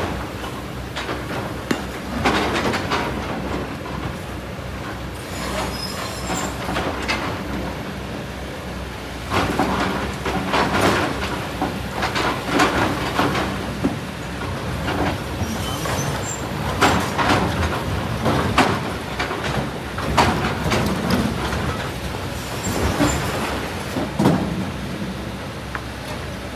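Kobelco SK200 hydraulic excavator running, its bucket scraping through sand and rock, with repeated bouts of stones clattering and grinding.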